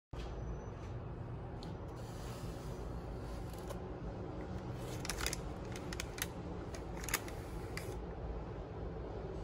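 Steady low room hum with a few faint clicks and taps as plastic food tubs are handled.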